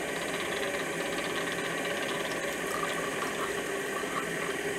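A pyridine–acetone mixture is poured from a beaker into a stirred copper iodide suspension, starting past the middle, over a steady background hum.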